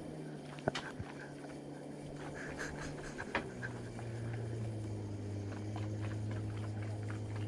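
A boat's engine running steadily; about three seconds in its note drops lower and grows a little louder as the revs change. A few light clicks and knocks sound over it.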